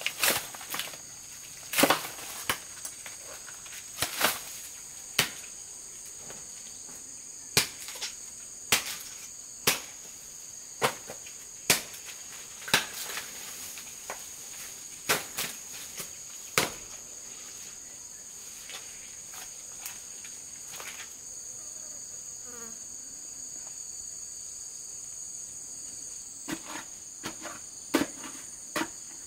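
Sharp chopping strikes of a hoe biting into a root clump and soil, about one a second, pausing for several seconds past the middle and starting again near the end. A steady high insect drone runs underneath.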